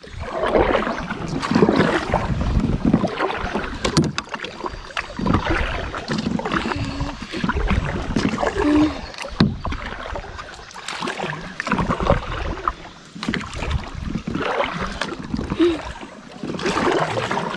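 Kayak paddle strokes: the blades of a double-bladed paddle dipping and swishing through the river water on alternating sides in a steady run of strokes.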